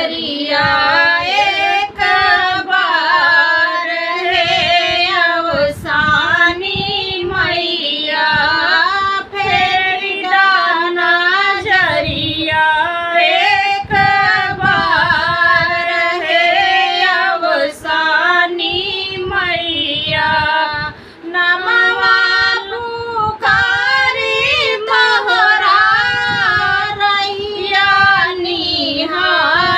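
A woman singing an Awadhi devotional folk song to Asani Mata, her voice sliding and bending through long, ornamented lines with only brief breaths between phrases.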